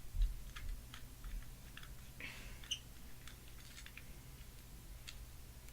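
Scattered small clicks and rustles of hands working plastic parts loose, with a brief scrape about two seconds in.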